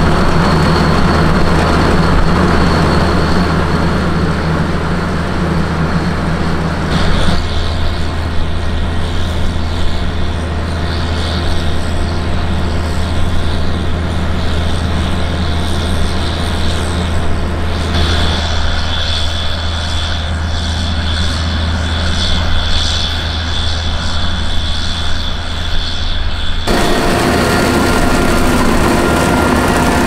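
Potato harvesting machinery running steadily: the diesel engine and working parts of a self-propelled AVR Puma harvester, with tractors alongside. It makes a constant low hum, with a thin high whine that comes and goes. The mix shifts abruptly three times.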